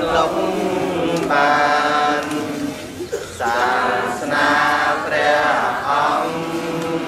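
A group of Buddhist monks and lay pilgrims chanting together in unison. The chant comes in long held phrases, with brief pauses for breath about a second in and again about three seconds in.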